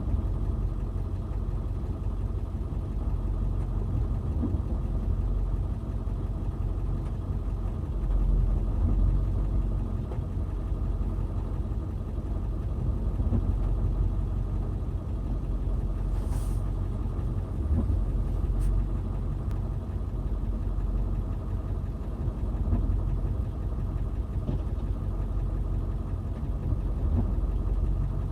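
Backhoe engine running steadily with a low rumble, swelling slightly now and then as it works. Two brief sharp sounds stand out over it, about sixteen and eighteen seconds in.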